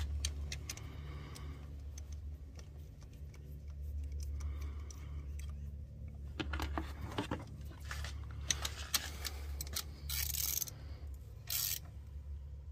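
Small metal clinks, scrapes and rattles of a 12 mm socket on an extension being turned by hand to run the fuel rail bolts down, with a few short louder rattling bursts in the second half. A steady low hum runs underneath.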